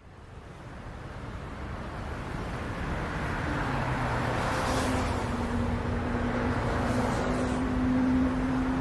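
Road traffic noise fading in from silence and building over the first few seconds, with a steady engine hum underneath.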